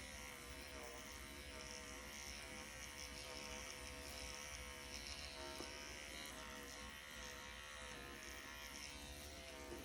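Faint steady buzz of a motorized hydra nano-needling pen running, with a slightly wavering pitch.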